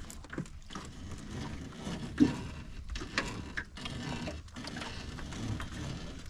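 Crab drop net's rope being hauled in hand over hand over the side of a small boat: irregular knocks, creaks and rubbing, with one sharp knock about two seconds in.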